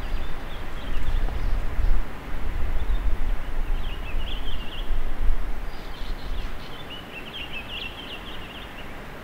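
Wind rumbling on the microphone over outdoor background noise, with small birds chirping in short trilling bursts twice. The wind rumble drops away about seven seconds in.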